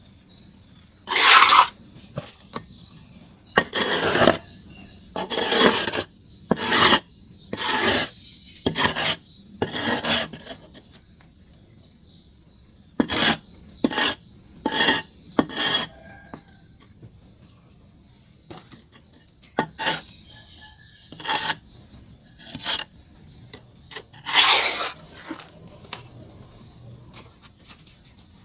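Scraping and rasping strokes as a lump of charcoal is shaped, each stroke lasting under a second. The strokes come in uneven runs with short quiet pauses between them.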